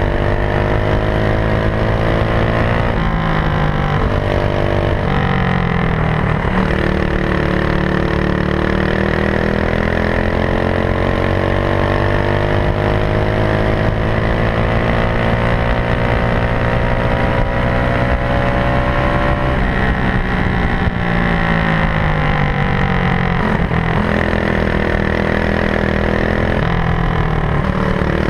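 Racing kart engine at racing speed, heard from on board: its pitch dips as it slows for corners a few seconds in, climbs steadily through a long acceleration along the straight, falls again about two-thirds of the way through, and rises once more near the end.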